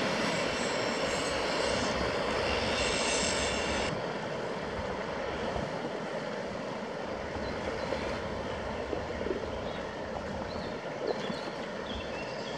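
Diesel engine of a loaded inland motor cargo barge running steadily as it passes, with the rush of water at its bow; the sound drops a little about four seconds in.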